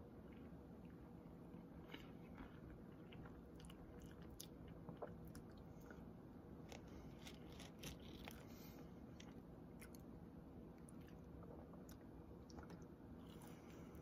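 Faint chewing of French fries, with scattered small crunches and clicks over a low steady room hum.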